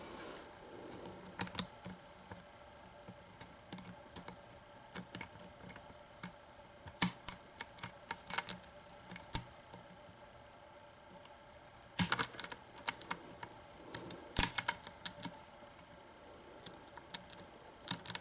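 Light, irregular metal clicks and scrapes of a lock pick and tension wrench working in the keyway of a Defiant doorknob's pin-tumbler lock, coming in small flurries with quiet gaps between.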